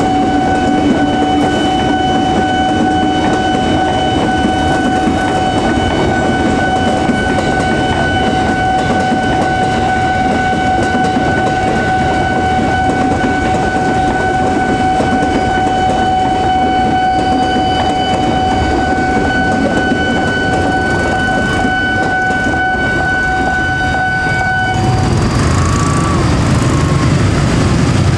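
Train rolling slowly past a level crossing in heavy rain: a dense, steady hiss of rain and wheel noise. Over it, a steady high-pitched tone holds and then cuts off suddenly near the end.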